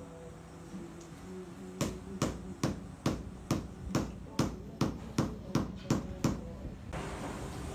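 About a dozen sharp knocks at a steady pace, roughly two and a half a second, from a tool tapping during floor tiling. They stop a little before the end, when a steady rushing noise takes over.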